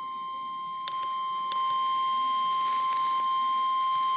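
Emergency Alert System attention tone for a tornado warning: a single steady high tone, broadcast over FM radio. Two clicks come about a second in, and the tone is louder after them.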